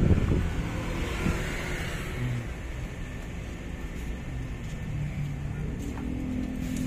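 Steady rumble of road traffic, with a brief thump right at the start.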